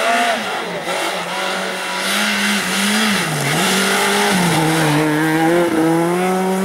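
Škoda Fabia S2000 rally car's four-cylinder engine revving hard on a snowy stage. The pitch sags to a low dip about three seconds in as the driver lifts, then climbs again and holds high as the car accelerates away. A steady hiss runs beneath it.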